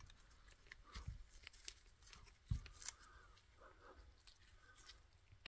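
Near silence with a few faint taps and handling noises: multimeter test probes being set on terminals inside a radio chassis.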